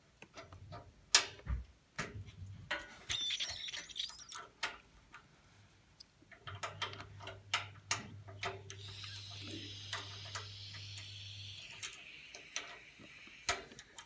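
Sharp clicks and taps of a brass radiator bleed key and its metal key ring working the bleed valve of a panel radiator. From about nine seconds in comes a steady hiss of air rushing through the opened bleed valve as the heating system drains.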